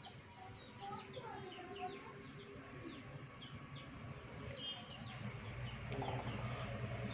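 Faint background birdsong: many short high chirps and a few lower calls, with chicken-like clucks. About five and a half seconds in, a low steady hum sets in and builds slightly.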